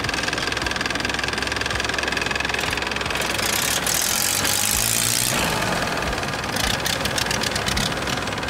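Longtail boat's exposed car-type engine running loud and steady, driving the propeller on its long shaft.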